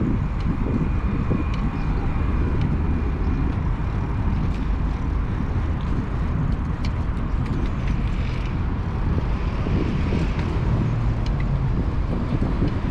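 Street traffic and wind rumbling on the microphone of a moving bicycle, with a few faint clicks.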